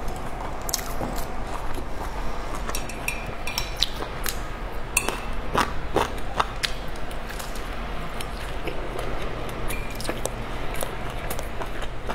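Close-miked eating of steamed dumplings: wet chewing and mouth sounds, with chopsticks clicking and clinking against each other and the dish in a string of short sharp ticks and a few brief pings. A faint low hum runs underneath.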